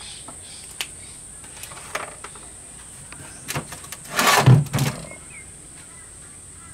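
A few faint knocks, then about four seconds in a brief scraping clatter as a cast-iron arbor-press die plate is slid and turned by hand on a metal bench top.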